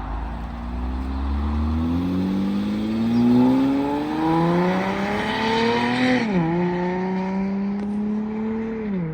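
Car engine accelerating, its pitch climbing in long rises, dropping sharply about six and a half seconds in as at a gear change, then holding steady and falling again near the end.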